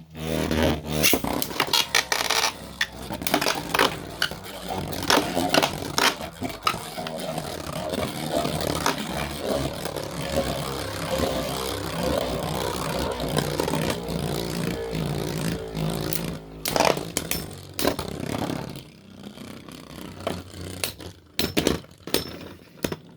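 Two Beyblade spinning tops, one of them 3D-printed, battling in a plastic stadium: a steady scraping whirr as they spin and grind, broken by many sharp clashing hits. The scraping drops away about nineteen seconds in, leaving a few scattered clicks as the tops slow down.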